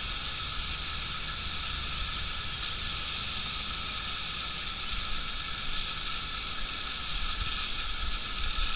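Steady outdoor background hiss with no distinct event, a few slight low swells in the last couple of seconds.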